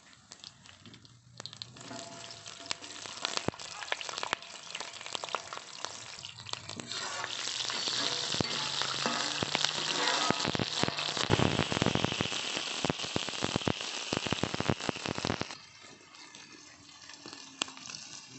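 Green chillies frying in hot oil in an iron kadai. The oil crackles faintly at first, then sizzles loudly with dense spattering crackles from about seven seconds in. The sizzle drops off suddenly a few seconds before the end, leaving quieter crackling.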